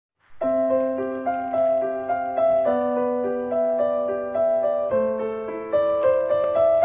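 Piano music: a melody of quick single notes over low held notes that change every couple of seconds, starting about half a second in.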